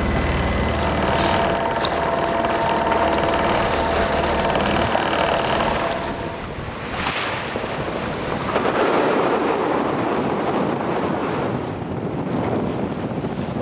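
Wind buffeting the microphone and water washing along a sailboat's hull under sail, with a splash of spray about seven seconds in.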